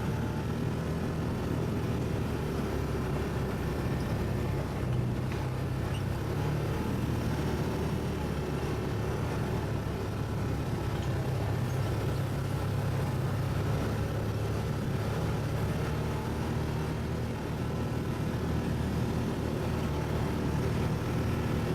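ATV engine running at a steady speed, a low, even drone.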